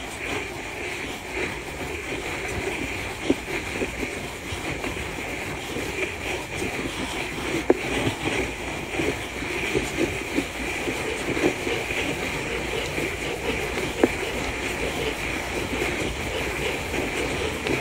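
Steady mechanical rumble and rattle with a constant high hum and scattered sharp knocks.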